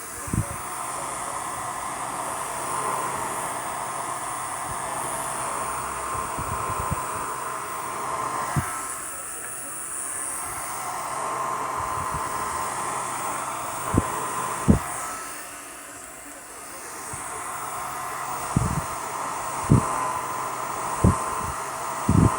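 Handheld hair dryer running with a steady whine, fading a little twice, with several brief low thumps.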